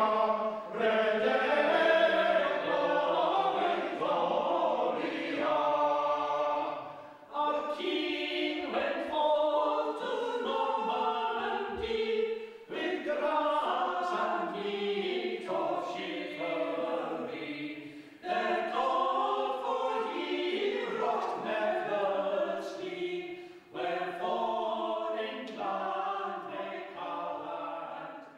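Choir singing as background music, in long phrases that break every five or six seconds.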